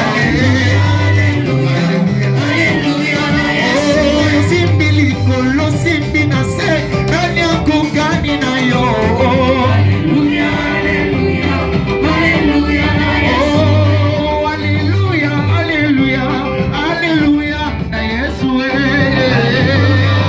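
Church worship song with singing over a live band: wavering voices above a repeating bass line and a steady beat.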